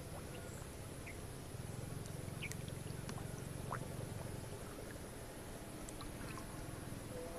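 Outdoor ambience: a steady low rumble with a few faint, short chirps scattered through it.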